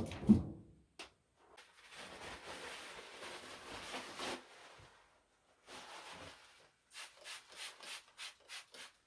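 Handling noises at a counter: two dull knocks at the start, then a long stretch of rustling, scraping noise and a run of short rustles near the end as a plastic bag is worked in the hands.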